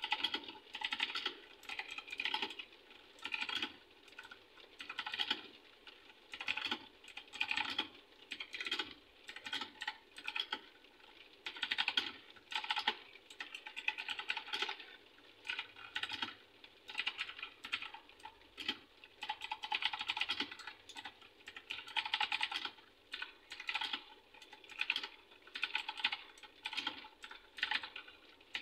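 Typing on a Ziyou Lang T60 mini mechanical keyboard with clicky blue switches: rapid key clicks in short bursts, word by word, with brief pauses between.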